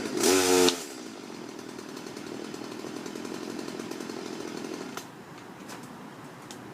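Chainsaw running steadily, then cutting off about five seconds in.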